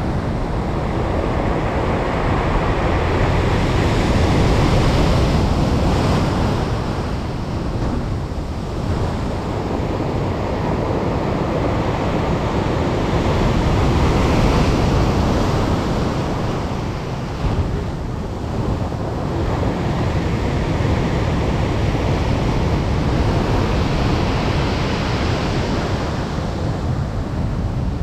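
Heavy storm waves breaking against a pier and rushing up the shore: a continuous wash of surf, with three big breakers about ten seconds apart rising above it.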